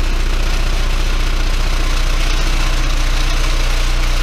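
An 18-inch Dayton Audio subwoofer driver, unmounted in free air, playing a steady 30 Hz sine test tone as a loud low hum with a buzzy rattle from things around it vibrating.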